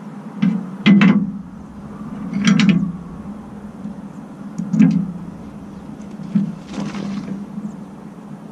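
A few separate knocks and clinks from hand work with tools and small parts, one near the middle a short rattle, over a steady low engine hum.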